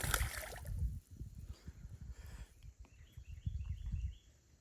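Wind buffeting the microphone in uneven low gusts, with a brief hissing burst at the very start and a short series of bird chirps about three seconds in.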